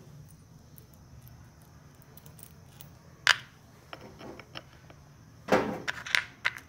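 Sharp metallic clicks and clinks of a brass-threaded bolt being handled at a metal terminal clamp. One loud click comes about halfway through, a few lighter ones follow, and a quick cluster of clicks comes near the end, over a low steady hum.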